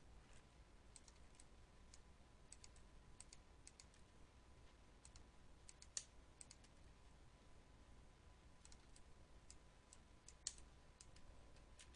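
Faint, scattered clicks of a computer keyboard and mouse, some in quick runs of two or three, with two louder clicks about halfway through and near the end, over a faint steady hum.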